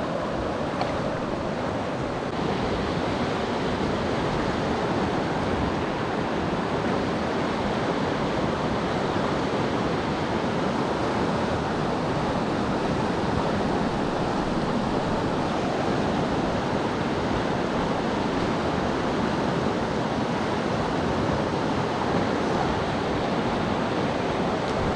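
River water rushing steadily, a constant even hiss of flowing current.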